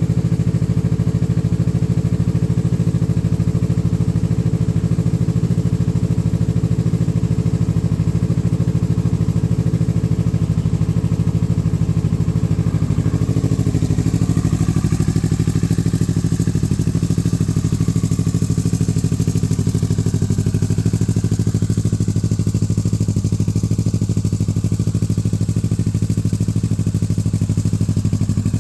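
2017 Kawasaki Z650's parallel-twin engine idling steadily on a cold start, through a titanium full exhaust with a Yoshimura R11 muffler. Its note shifts slightly about halfway through.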